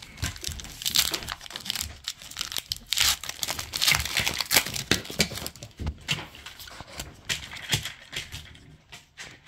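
Foil Pokémon card booster pack wrapper crinkling and tearing as the pack is torn open, a dense crackly rustle that thins out near the end.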